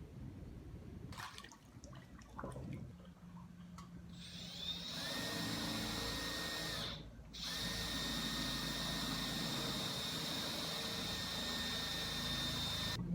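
Power drill motor spinning up and running at a steady speed, stopping briefly about seven seconds in and then running again for several seconds.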